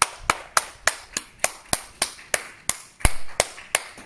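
A single pair of hands clapping steadily, about three claps a second.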